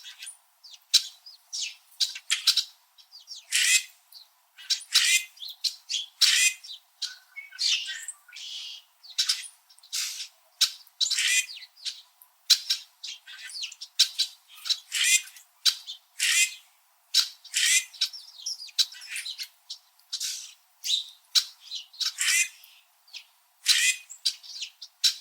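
A flock of red-winged blackbirds calling in winter: a steady stream of short, sharp chirps and check calls from several birds, about two a second, some overlapping.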